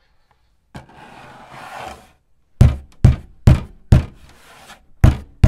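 A scratchy rustling for about a second and a half, then loud heavy bangs: four knocks about half a second apart, and two more after a short pause.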